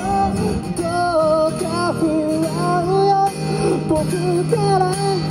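A man singing a slow song into a microphone while playing an acoustic guitar, the vocal melody gliding between held notes over the guitar chords.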